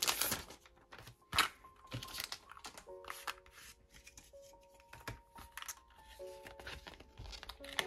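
A paper envelope being opened by hand: irregular crinkling, rustling and tearing of paper, with a sharp rustle about one and a half seconds in. Soft background music comes in about three seconds in.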